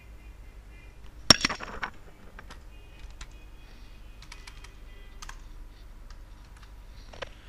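Computer keyboard keys clicking in an irregular scatter of single keystrokes, with one louder key strike about a second in.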